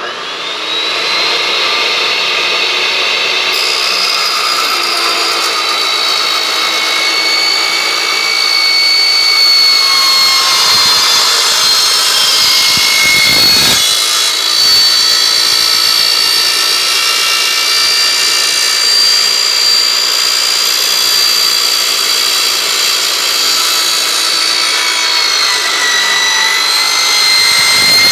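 Chop saw motor spinning up, then a carbide-tipped wood-cutting saw blade cutting through rectangular steel tube, with a loud, steady, high-pitched whine throughout the cut.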